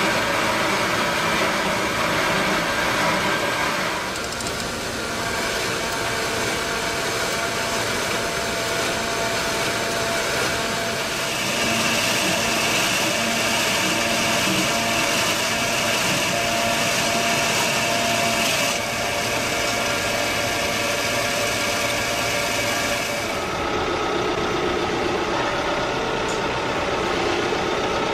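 Portable rail-mounted log saw running as it rips lengthwise through a large log: a steady machine drone with a few faint steady tones, shifting in tone abruptly several times.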